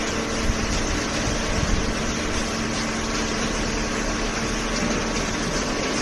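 Horizontal cardboard baler and its feed conveyor running: a steady machine hum with a few faint steady tones over it, with no separate strokes or impacts.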